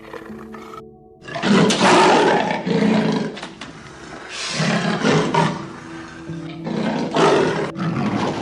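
Amur leopard growling: after a quieter start, three loud, rasping growls a second or so long each, with background music underneath.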